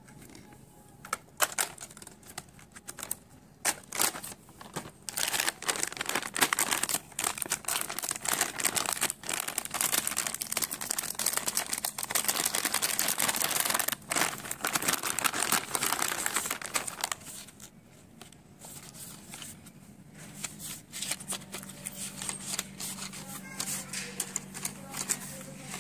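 Plastic packaging of a stationery kit crinkling and tearing as it is opened by hand, a dense stretch of crackling in the middle, with scattered clicks of crayons and pencils being handled before and after. A low steady hum comes in near the end.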